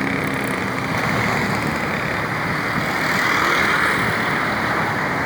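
Steady roadside traffic noise of passing vehicles, swelling slightly about three seconds in; no horn sounds.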